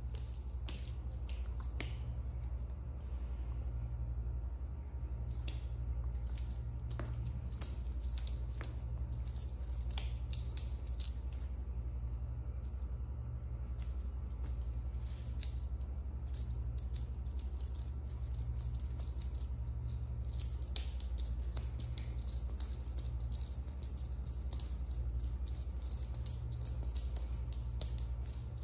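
Light, irregular clicks and rattles of cats playing with a feather wand toy on a tile floor, over a steady low hum.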